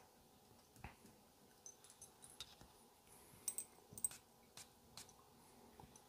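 Near silence with a few faint, scattered clicks from a glass Jo Malone cologne bottle and a paper scent strip being handled.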